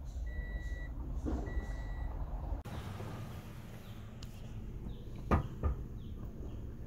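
Two electronic warning beeps, evenly spaced at about one a second, which stop about two seconds in, over a low rumble. A little over five seconds in come two sharp clicks close together.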